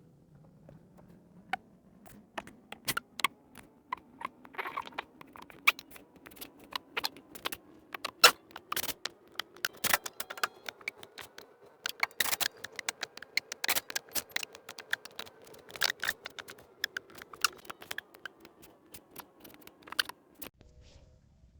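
Irregular sharp clicks, taps and scrapes of hands and tools working on plastic interior trim and fittings, coming thickest in the middle of the stretch.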